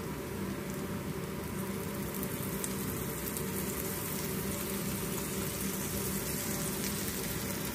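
Butter melting and sizzling softly in a hot pan around banana laddus as they fry: a steady hiss with faint crackles, over a steady low hum.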